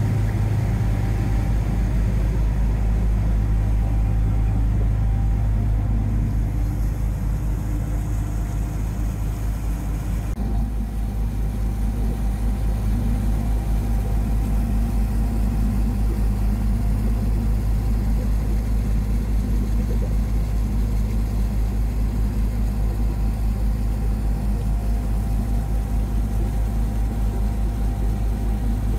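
Sightseeing boat's engine running with a steady low drone, heard on board. The sound shifts slightly about ten seconds in and then carries a faint, even pulse.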